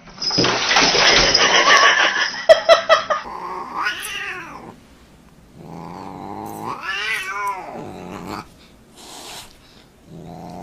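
A loud harsh hiss for the first few seconds, then a cat yowling in drawn-out calls that rise and fall. There is a short call, then a long one, and another begins near the end.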